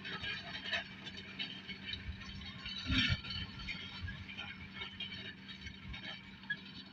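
Farm tractor running steadily at ploughing, with metallic rattling and clinking from the machinery and one louder knock about three seconds in.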